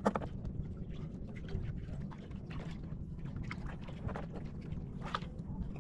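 Steady low rumble of wind and water against a small outrigger boat at sea, with a few faint knocks scattered through it.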